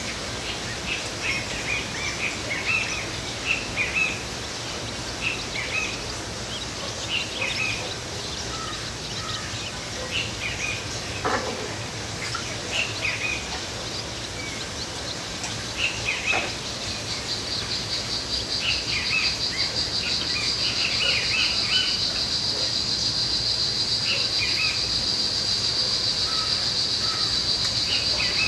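Many small birds chirping and twittering in their evening chorus before roosting: short, scattered calls throughout. A little past halfway a steady, high-pitched pulsing trill sets in and carries on.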